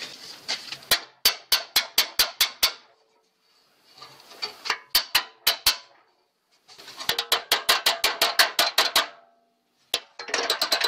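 Hammer blows on the steel rear bumper of a Land Rover Discovery, straightening a bent section. Several runs of sharp metallic strikes, several a second, with short pauses between the runs.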